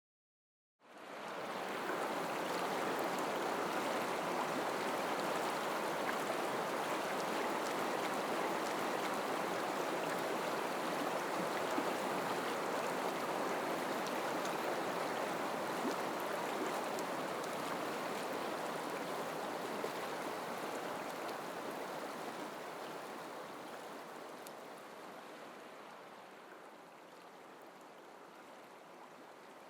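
River water rushing, a steady even hiss that starts abruptly and fades down over the last several seconds.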